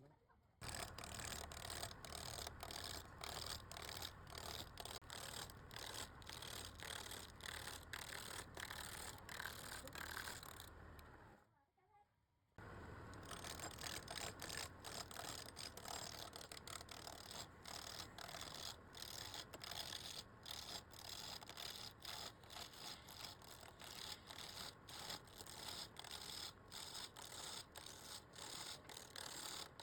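Rapid, continuous hand scrubbing or scraping strokes, many per second, which stop for about a second near the middle and then carry on.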